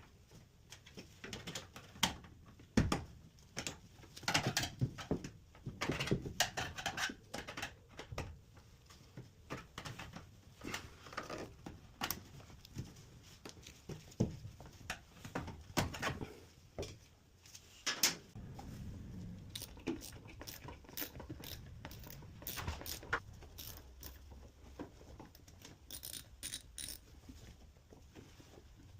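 Irregular clicks, knocks and light clatter of tools and parts being handled during repair work on a washing machine.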